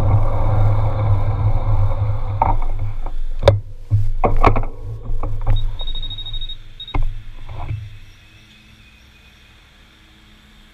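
Wind rumbling on the microphone of a handlebar-mounted bicycle camera as the bike rolls to a stop. Then several sharp clicks and knocks as the bicycle is handled, with a brief high steady tone near the middle. The sound drops to quiet road ambience for the last couple of seconds.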